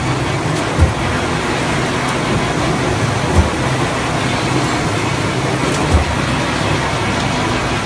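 A spindleless veneer peeling lathe running with a steady, loud industrial noise and a low thump about every two and a half seconds, three times in all.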